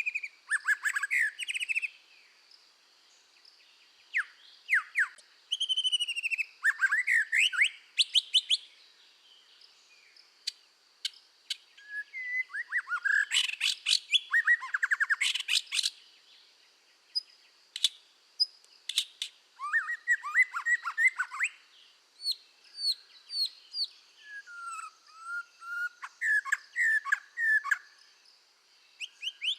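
Scarlet minivet singing: bouts of sharp, quickly falling whistled notes and fast trills, broken by pauses of a second or two, over a faint steady high hum.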